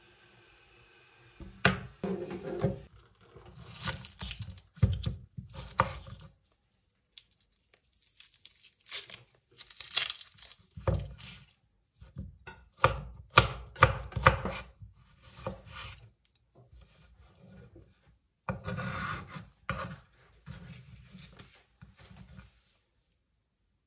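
Kitchen prep with no talk: a ring-pull can is pulled open near the start, then a chef's knife peels and slices an onion on a wooden chopping board, in irregular runs of knocks on the wood and scraping, with a longer scraping stretch a little before the end.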